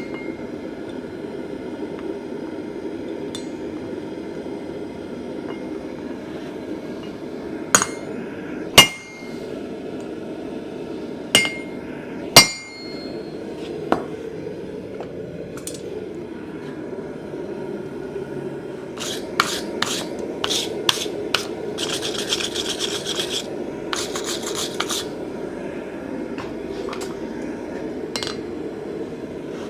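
Hammer striking steel in blacksmith forging: a handful of single ringing blows in the first half, then dense runs of rapid light taps in the second half, over a steady low background roar.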